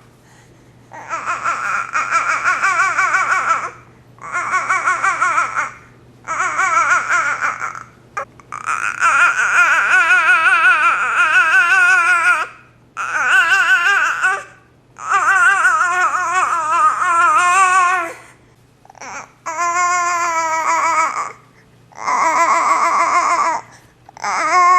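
High-pitched, wordless vocal noises: about ten wavering, warbling calls of one to four seconds each, with short pauses between them.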